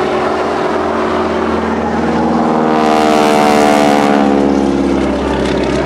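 Boeing Stearman biplane's radial engine and propeller passing close by in flight. The engine note drops in pitch as the plane goes past, loudest about three to four seconds in.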